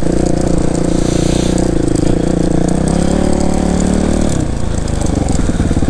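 Suzuki RMX450 dirt bike's four-stroke single-cylinder engine running as the bike is ridden along a muddy track. About four seconds in, the throttle eases off and the note drops to a slower, even beat.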